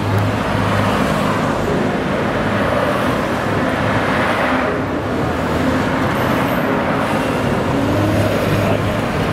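City street traffic heard from a moving open golf cart: a steady rush of road noise with the engine hum of nearby cars, swelling as a vehicle passes about four to five seconds in.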